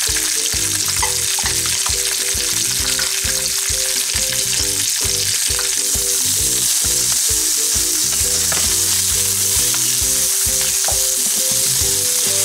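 Chopped red bell pepper and onion sizzling steadily in hot oil in a nonstick frying pan, stirred now and then with a wooden spoon.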